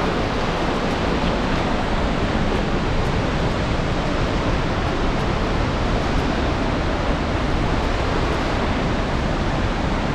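Steady roar of a large waterfall: an even rushing noise that goes on without a break.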